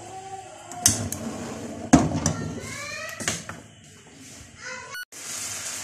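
A metal wok being set down on a gas stove's grate, with two sharp knocks about a second apart and voices in the background. Near the end, after a short break, a steady sizzling hiss from the pan starts.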